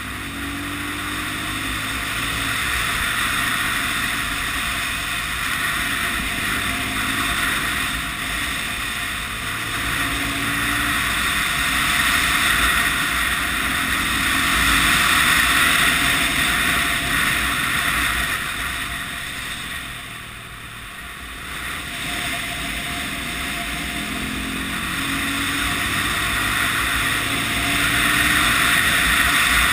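Honda CB250RS single-cylinder engine running under way, its revs rising again and again as the bike pulls through the bends, under heavy wind rushing over the microphone. The sound drops off for a moment about two-thirds of the way through, then picks up again.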